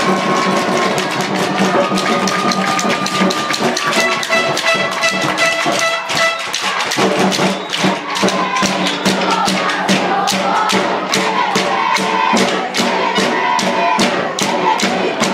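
Music: held notes with a fast, even percussion beat that comes in about halfway through.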